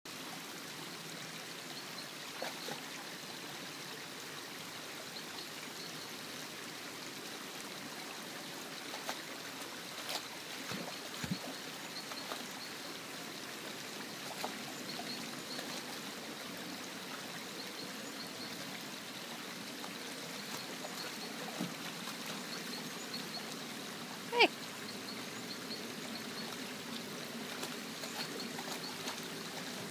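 Stream water running steadily, with scattered small splashes and knocks from a dog working at a tree root under the water. Late on comes one short, loud pitched cry.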